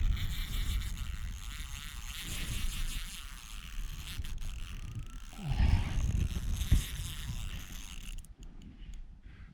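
Spinning reel's drag buzzing as a large hooked fish pulls line off, with low rumble from rod handling or wind on the microphone; the buzz dies away about eight seconds in.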